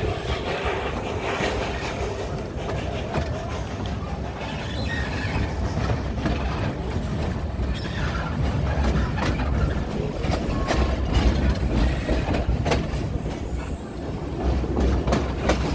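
Narrow-gauge steam train running along the track: a steady low rumble with the wheels clicking over the rail joints, the clicks coming more often in the second half.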